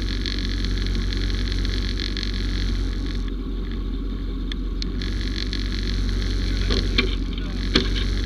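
Utility vehicle running with a steady low engine drone and road noise, and a couple of sharp knocks near the end.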